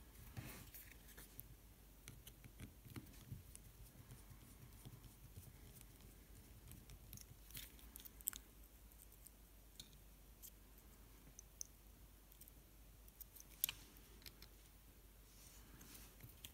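Near silence with scattered faint clicks and ticks as small plastic and metal parts of a drone camera gimbal and a precision screwdriver are handled. Two sharper clicks stand out, about eight and fourteen seconds in.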